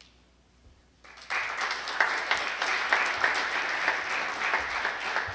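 Audience applause starts about a second in, after a brief quiet, and then keeps going as a steady patter of many hands clapping.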